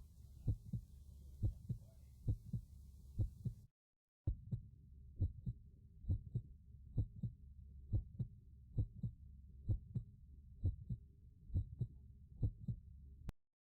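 Human heart sounds heard through a stethoscope's bell over the accessory aortic area: a steady lub-dub rhythm of low thumps, about one beat a second. The sound drops out briefly about four seconds in and cuts off suddenly near the end.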